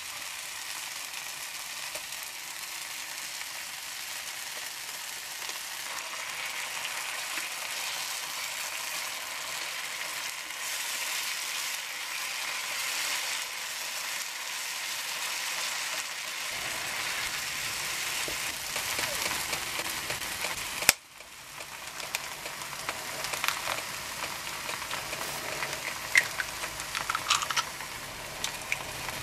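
Diced tomatoes, peppers and onion sizzling in oil in a frying pan while being stirred with a wooden spatula. A sharp click comes about two-thirds of the way in, and a few sharp taps follow near the end as eggs are cracked with a knife.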